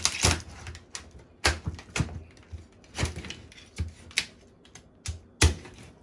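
Boiled lobster being cut with a kitchen knife on a wooden cutting board: irregular cracks and crunches of shell and knocks of the blade on the board. The loudest knock comes about five and a half seconds in.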